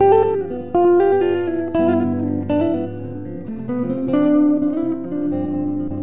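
Background music: acoustic guitar picking a melody over held notes.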